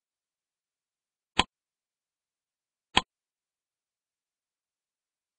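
Dead silence broken by two short, sharp clicks about a second and a half apart.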